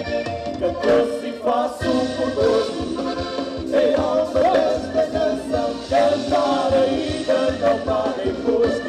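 Live Portuguese Minho folk music: concertinas (button accordions) play the tune over electric bass, drum kit and congas, with a steady beat.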